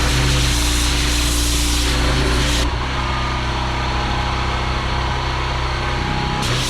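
Small petrol engine of a pressure washer running steadily under a hissing spray. The sound changes abruptly about two and a half seconds in, losing its hiss, and changes back near the end.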